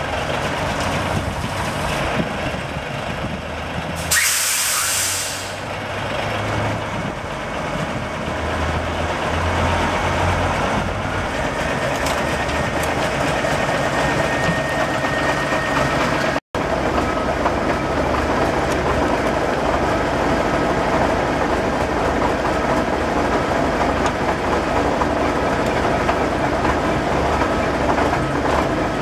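Heavy truck's engine idling steadily, with a short loud burst of air hiss from the air brake system about four seconds in.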